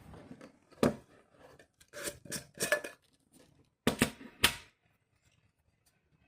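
A series of sharp clicks and knocks in three groups: one about a second in, a quick run of about four between two and three seconds, and three more around four seconds, then quiet.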